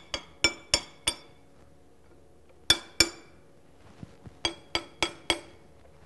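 A flat steel bar tapping against the metal end cap of a rotary vane vacuum pump, working the stuck cap loose: about ten short ringing clinks, in a run of four, then two, then four, at about three a second.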